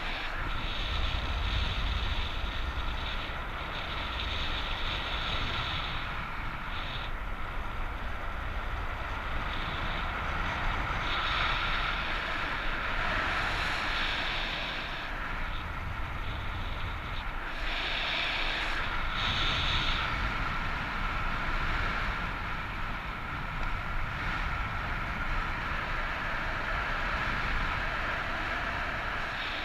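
Strong wind buffeting the microphone in flight: a steady rushing noise with a low rumble that swells and eases.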